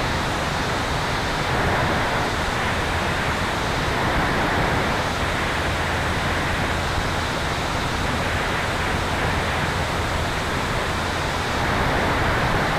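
Steady rush of wind and airflow noise on the tail-mounted camera of an electric Sonex Xenos aircraft, with a faint low hum underneath and no distinct events.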